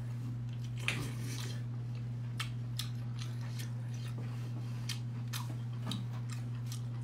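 Wet mouth sounds of eating sauce-covered tentacles: a handful of short smacks and slurps while chewing, over a steady low hum.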